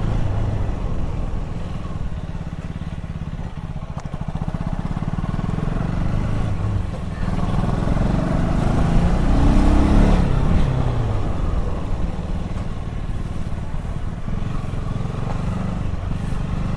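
A new KTM motorcycle's engine running at low road speed. Its pitch rises and then falls about halfway through.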